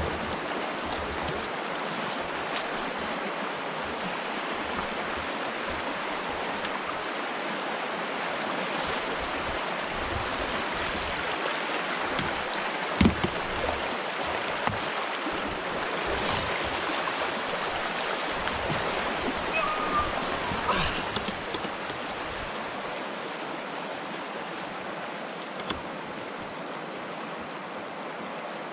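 Rushing water of river rapids, a steady wash, with one sharp knock about halfway through and a smaller one near the end. The water noise eases slightly about three quarters of the way in.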